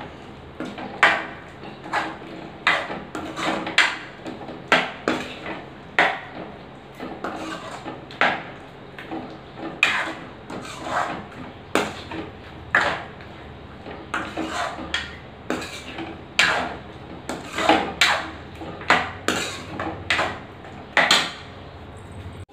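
Steel ladle clacking and scraping against a steel kadai as curry is stirred: sharp, irregular knocks about one or two a second.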